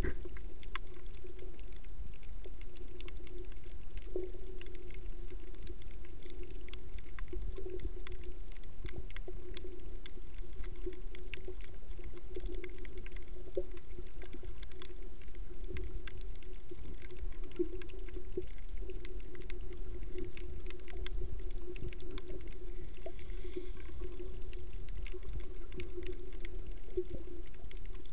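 Underwater ambience heard through a submerged camera: a steady, muffled rumble and hum with constant faint crackling clicks.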